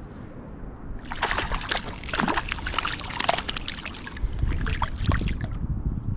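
A hooked rainbow trout splashing and thrashing at the water's surface beside the kayak as it is played in, in a run of sharp, irregular splashes. A low rumble comes in near the end.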